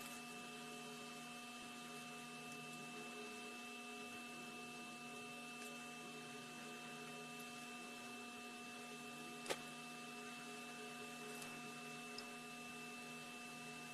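Steady low electrical hum with a thin high whine above it, and a single light click about nine and a half seconds in.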